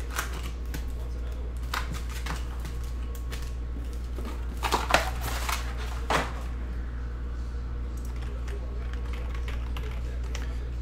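Foil-wrapped trading card packs rustling and clicking as a stack is handled and set down on a table mat, with the loudest clatter about five and six seconds in, then only faint ticks over a steady low hum.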